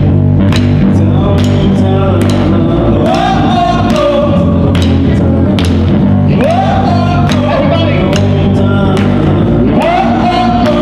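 Live blues-rock band playing: electric guitars over a steady drum beat of about two hits a second, with a singer's phrases that swoop up in pitch three times.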